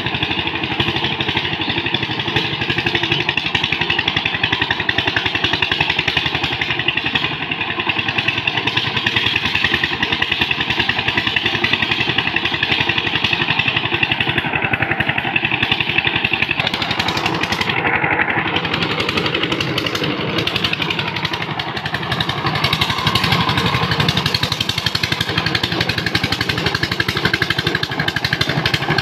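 Single-cylinder diesel engine of a two-wheel power tiller running steadily with a rapid, even putter as the tiller works through flooded paddy mud.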